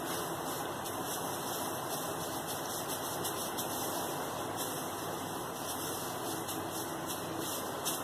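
Steady background noise, with light crinkling of plastic bag-gloves as hands press and shape minced kabab mixture.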